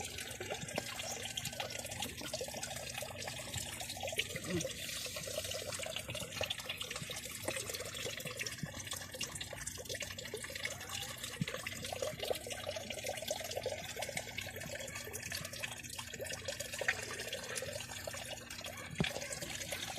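Water trickling and bubbling steadily in a koi fry tank, with many small drips and splashes.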